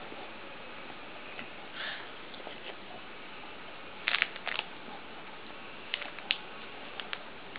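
English Pointer gnawing a hard chew treat: sharp clicks of teeth on the chew, a quick cluster about halfway through and a few single ones near the end.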